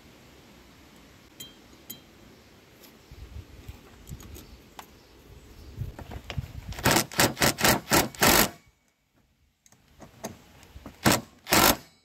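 Cordless impact driver tightening the bolts of a brushcutter's centrifugal clutch. A quieter spin-up runs first, then about six short, loud bursts of hammering in quick succession. After a brief pause come two more bursts near the end.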